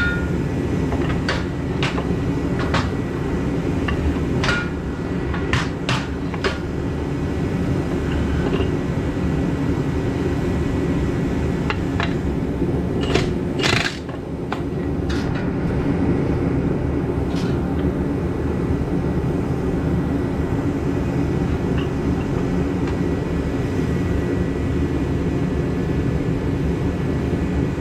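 Scattered metallic clicks and knocks of hand tools working on a Dana 30 differential, while the pinion is being backed off a touch to ease its preload. A steady low rumble runs underneath.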